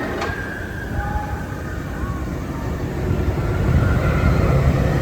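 Roller coaster train rumbling along its track, growing louder about three seconds in, with a faint high squeal over the rumble.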